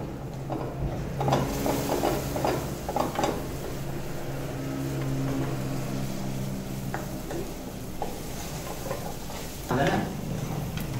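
A metal ladle stirring and scraping chickpeas and potato in a black iron kadai, the oil sizzling under it, over a steady low hum; a louder clatter near the end.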